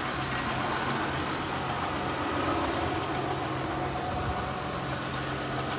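1995 Toyota Camry engine idling steadily in drive with the brakes applied, a constant low hum.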